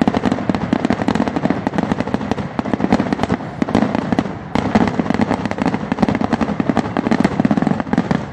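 Fireworks finale barrage: aerial shells bursting in a dense, rapid, near-continuous string of bangs and crackles, easing briefly about halfway through before building again.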